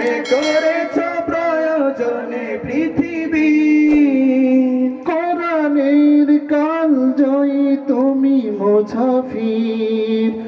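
A man singing a Bengali Islamic gazal into a microphone, drawing out long, wavering held notes between lines.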